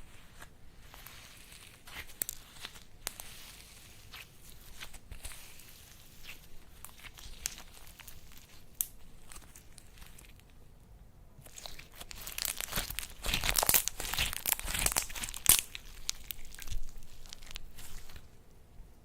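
Slime being worked by hand, giving a run of small crackles and clicks that grows louder and denser for a few seconds past the middle before settling again.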